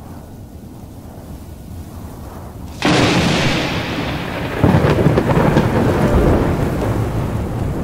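Faint steady rush of air, then about three seconds in a sudden loud thunderclap that rolls on as a long rumble with a rain-like hiss, swelling again about five seconds in. It is a recorded thunderstorm on the soundtrack, not the glider.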